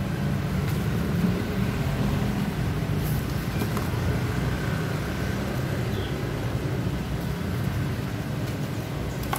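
Steady low rumble of motor-vehicle traffic.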